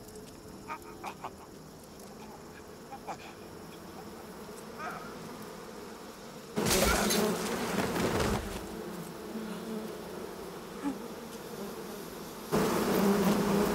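Swarm of bees buzzing, faint at first, then swelling suddenly and loudly about six and a half seconds in, easing off, and surging again near the end.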